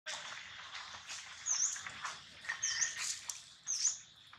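Short, high-pitched animal squeaks, each dipping then rising in pitch, repeated about once a second over a steady rustling hiss.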